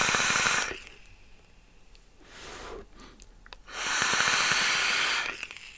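Airy hiss of a drag on a rebuildable vape tank, air sucked through its half-closed honeycomb bottom airflow holes while the single coil fires at 55 watts. There are two draws: a short one right at the start and a longer one from about four seconds in, with a few faint clicks between them.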